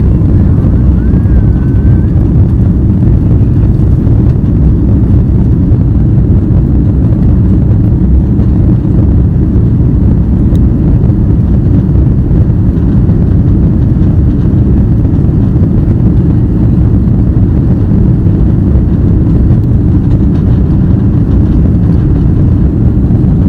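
Airbus A330-300's Rolls-Royce Trent 700 engines at takeoff thrust, a loud, steady, deep rumble as heard inside the passenger cabin.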